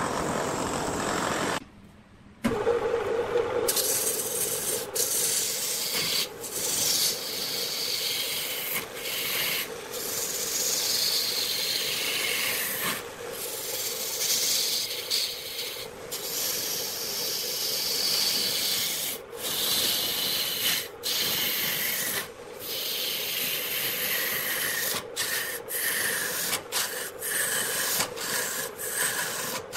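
A wood lathe spins a large cylindrical wooden blank while a hand-held turning tool cuts into it: a continuous scraping cut over a steady hum, with many short breaks as the tool is lifted and set again. About two seconds in there is a brief near-silent drop-out, and the cutting grows fuller from about four seconds in.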